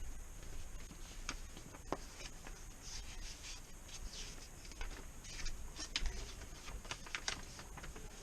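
Folded paper poster being opened out and handled, giving scattered short paper crackles and rustles.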